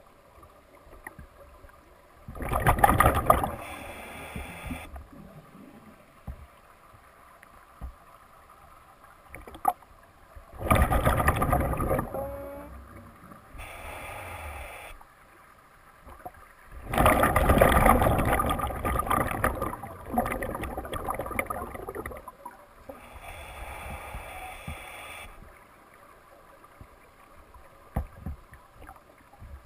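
A scuba diver breathing through a regulator, heard underwater. Three loud bursts of exhaled bubbles come several seconds apart, each followed by a quieter, hissier stretch, with faint clicks and ticks in between.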